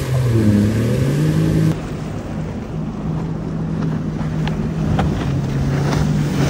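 Seabreacher Razorback watercraft's engine running under power, its pitch dipping and rising in the first second, then holding steady. A rush of water spray goes with it at the start.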